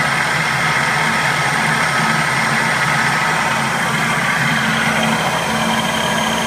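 Central Machinery 12x36 metal lathe running at speed, its motor driven by a variable frequency drive: a steady hum with a higher steady whine.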